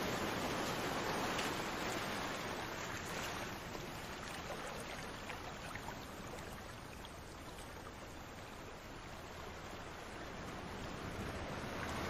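Sea waves washing on a shore, a steady rushing noise that ebbs through the middle and swells again near the end.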